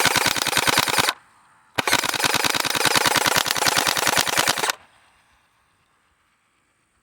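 Gel Blaster Surge firing two long rapid-fire bursts of closely spaced shots. The first ends about a second in; the second starts a moment later and runs about three seconds.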